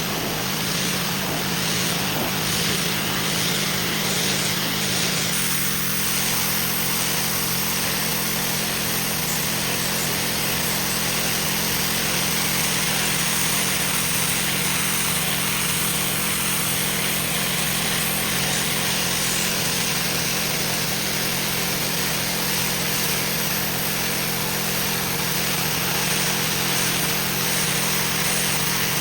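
Pressure washer running continuously: a steady motor hum under the even hiss of the high-pressure water spray.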